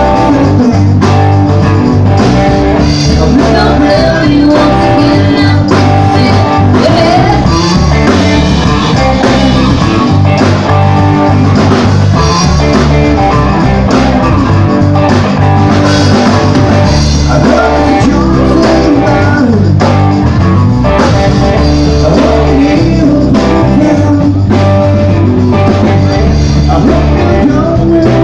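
Rock music with electric guitars, bass and drums playing to a steady beat.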